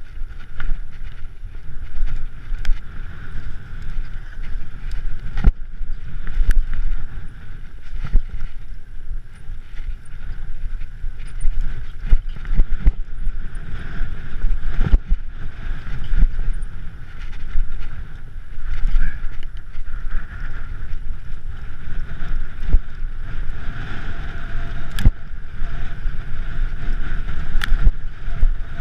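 Mountain bike ridden over a rocky trail: a continuous rumble and rattle of tyres, frame and handlebars over stones, broken by many sharp knocks from harder hits.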